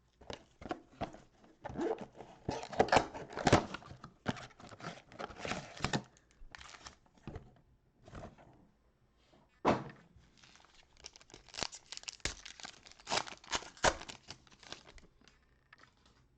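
Plastic wrapping crinkling and tearing in irregular spurts as a sealed trading-card mega box and its packs are torn open, with a few thunks from handling the cardboard box.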